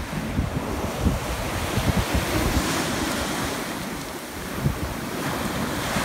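Surf breaking on the beach, with wind buffeting the microphone in irregular low thumps.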